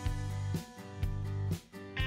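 Background music: an instrumental tune led by guitar.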